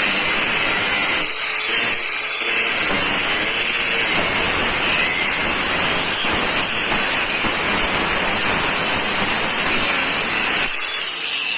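Craftsman V20 brushless 4.5-inch angle grinder cutting with a cutting disc: a loud, steady, hissing grind. Near the end the cutting noise stops and the grinder runs on briefly.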